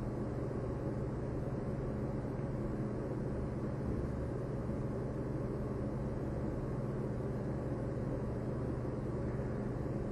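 Steady background hum and hiss of an old film sound track, with no distinct sound events.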